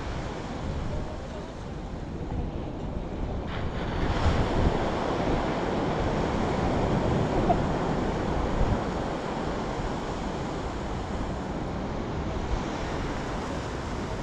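Surf breaking and washing up a sandy beach, a steady rushing that swells a little about four seconds in, with wind buffeting the microphone.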